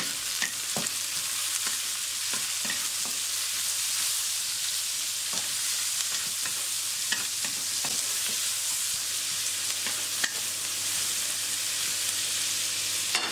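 Sliced green chili peppers and garlic sizzling steadily in hot oil in a wok as they are stir-fried with a wooden spatula, which gives a few light clicks against the pan.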